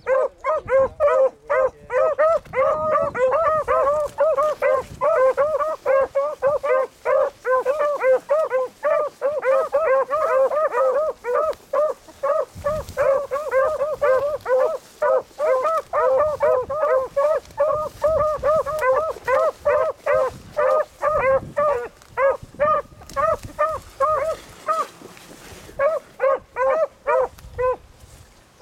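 Beagles giving tongue while running a rabbit's scent line: a rapid, overlapping chop of short, high yelping bays. The calls drop off briefly near the end, then start again.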